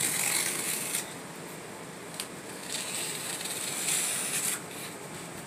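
Packing tape on a cardboard shipping box being slit and pulled open along its seams: scraping, hissing strokes across the cardboard, with a couple of sharp clicks.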